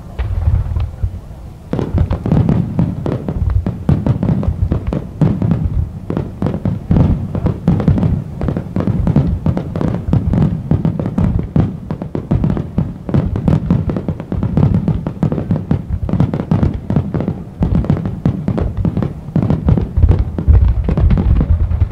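A rapid-fire fireworks barrage: many shells launching and bursting at once in overlapping booms and cracks. It is sparser for the first couple of seconds, then a dense, unbroken volley.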